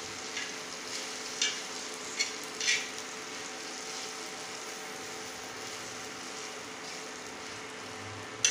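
Okra and spice powder being tossed by hand on a hot iron tawa: a few soft scrapes and rustles in the first three seconds over a steady low hiss and faint hum. A sharp click comes at the very end.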